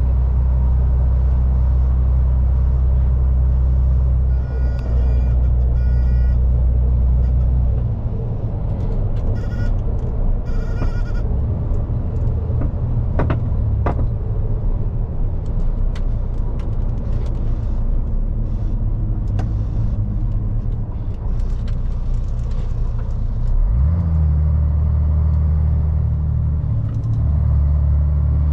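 Diesel engine of a 2001 MAN lorry running steadily on the move. The engine note drops about 8 seconds in and steps up again near the end, as the manual split gearbox is worked, with scattered light clicks and rattles over it.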